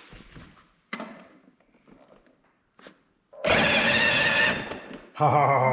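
A few faint knocks, then a little over three seconds in the electric drive motors and gearboxes of a ride-on toy Jeep, running on a DeWalt battery through a variable-speed controller, start up with a loud, steady, high whine as the pedal is pressed. The whine stops for about half a second and starts again.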